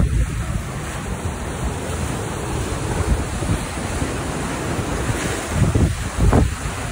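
Rough sea surf breaking and washing against a stone seawall and rocks, with wind buffeting the microphone; it swells louder near the end.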